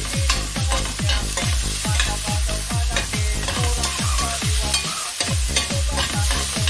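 Diced onion and garlic sizzling in oil in a stainless steel pan, with a spoon scraping and stirring against the pan. Background electronic music with a steady thumping beat plays throughout.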